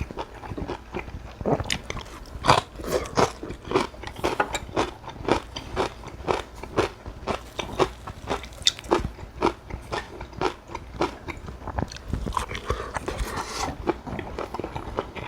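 A person eating cockle bibimbap close to the microphone: steady chewing and biting, with many short clicks and smacks several times a second.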